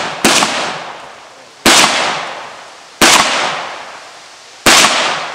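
AR-15 rifle fired in slow aimed shots: four sharp reports about a second and a half apart, then a fifth coming quicker right at the end, each trailing off in a long echo.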